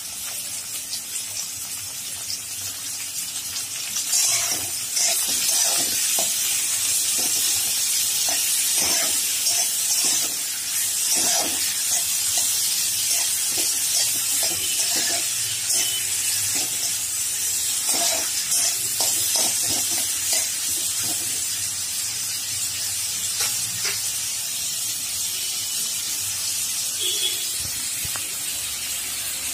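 Chopped onions and tomatoes sizzling steadily in hot oil in a pan, with a spatula scraping and knocking against the pan as they are stirred, most busily from about four seconds in until about twenty seconds.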